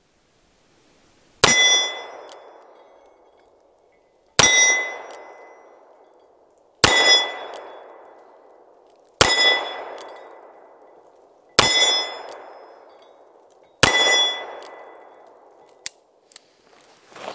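Six shots from a Smith & Wesson Model 19 Carry Comp .357 Magnum revolver with a ported barrel, fired one-handed in single action about every two and a half seconds. Each shot is followed by the ring of a hit steel gong target, dying away over about two seconds. A light click comes near the end.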